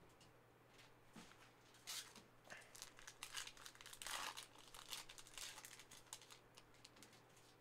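Foil wrapper of a Panini Prizm trading-card pack crinkling and tearing as it is opened, with a run of irregular crackles and rustles as the cards are handled; faint.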